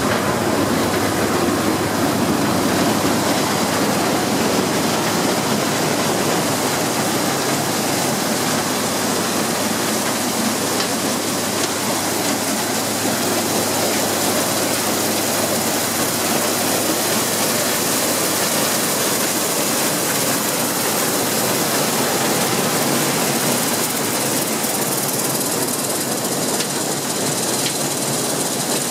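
An old corn sheller running steadily while ear corn is fed in on its chain elevator and shelled kernels stream out into a steel wagon, making a loud, even mechanical noise.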